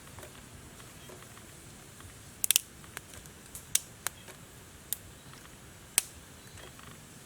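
Squash vine shoots being snapped off by hand: a handful of sharp, crisp snaps at uneven intervals, a double snap first.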